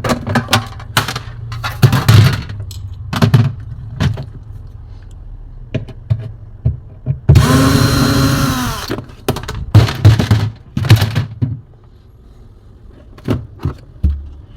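Knocks and clatter of refrigerator interior panels and parts being handled and pulled free, with a cordless screwdriver or drill running once for about a second and a half near the middle of the stretch, its motor pitch rising and then settling.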